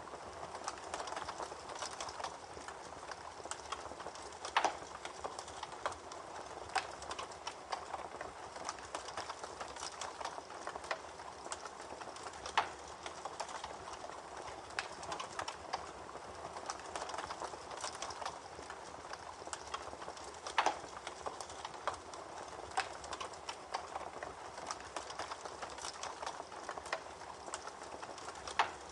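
Campfire crackling with frequent small pops and a few louder snaps, over the steady rush of a babbling creek.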